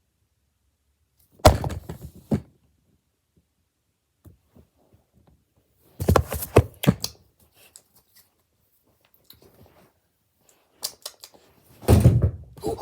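Three short bursts of thuds and knocks, a few seconds apart: something hard bumped or dropped several times, with quiet between.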